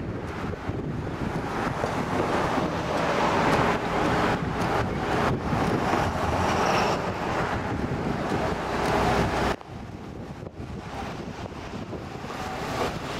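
Strong gusty wind buffeting the microphone in the storm, which drops off suddenly about nine and a half seconds in and then builds again.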